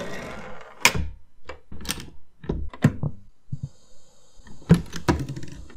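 A series of sharp, irregular knocks and thuds, with a faint steady high whine joining about halfway through.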